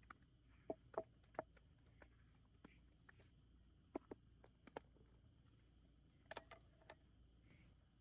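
Glass Mason jars clinking and knocking as they are handled and set down on a wooden table, in short sharp clusters. Behind them, crickets chirp steadily about twice a second.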